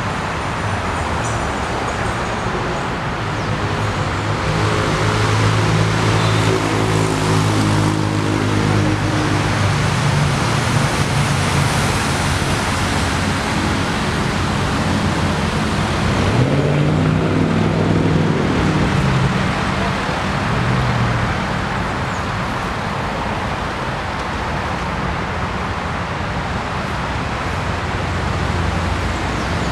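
Steady road traffic noise, with a vehicle engine running nearby from a few seconds in until about twenty seconds in; its pitch drops partway through and then climbs again.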